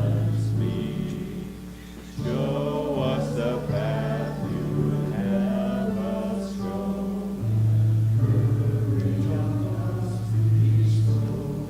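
A congregation singing a hymn, with instrumental accompaniment holding long low notes. The music dips briefly between phrases.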